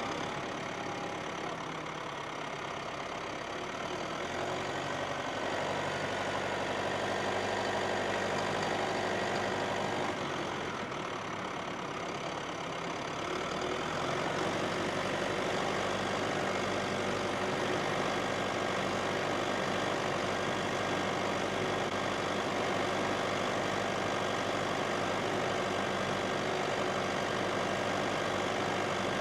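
Massey Ferguson tractor engine running steadily while ploughing. It gets louder about five seconds in, dips briefly after ten seconds, and picks up again at fourteen seconds.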